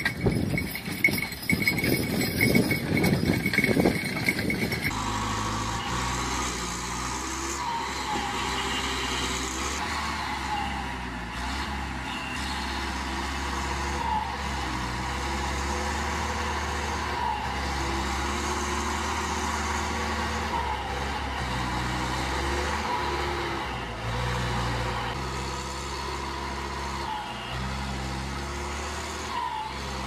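Forestry skidder's diesel engine running under load as it drags logs, its pitch and level shifting up and down. About five seconds in it takes over from the clatter and ringing of a yoked ox team at the plough.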